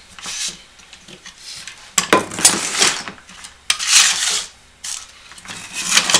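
Wooden jig and plastic-and-metal bar clamp being handled on a workbench: several spells of scraping and clatter, with sharp knocks about two and four seconds in.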